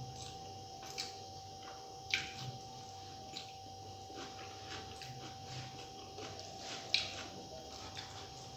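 A person eating a meal of rice and curry: chewing and wet mouth sounds, with a few short sharp smacks or clicks about one, two and seven seconds in.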